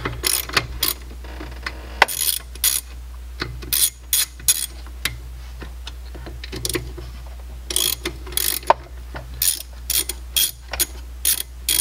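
Hand ratchet clicking in short bursts of rapid clicks, with pauses between them, as a 12 mm socket on an extension backs out the bolts holding a brake master cylinder to the vacuum booster.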